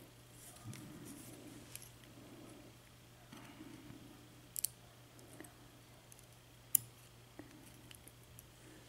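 Faint handling noises and a few sharp small metallic clicks as the top pins and springs are picked out of the padlock's pin chambers.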